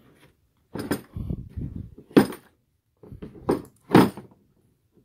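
A chrome 24-inch breaker bar knocked and rolled across the hard plastic lid of a blow-molded tool case: several clunks and metallic clatters, the loudest about two seconds in and about four seconds in, with low rolling and scraping between them. The bar is being rolled to check whether it is bent.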